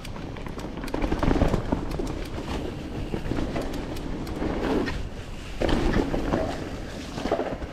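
Mountain bike riding fast down a dirt trail: tyres rumbling over the ground and the bike rattling and clicking over bumps, with two louder surges, about a second in and near the end.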